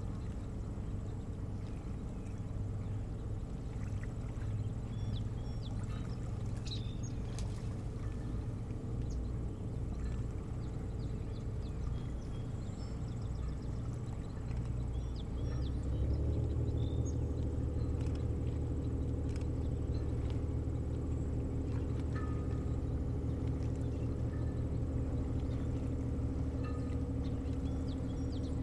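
A motorboat's engine running steadily, then rising slightly in pitch and getting louder about halfway through before holding steady again. Scattered short bird chirps come over it.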